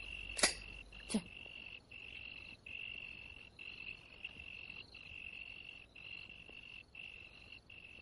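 Night-time insect chirring: a steady high trill broken by short gaps about once a second. Two short sharp knocks come in the first second or so.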